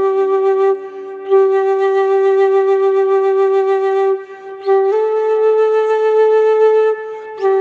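Flute playing a slow, calm melody of long held notes, each sustained for a few seconds, with brief breaks between phrases and a step up in pitch about halfway through.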